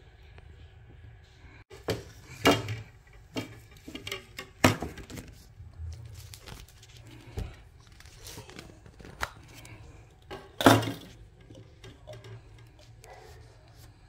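Plastic humidifier parts and their wrapping being handled on a table: a run of irregular clicks, knocks and clatters, with the loudest knocks at about two and a half, four and a half and ten and a half seconds in, over a faint low hum.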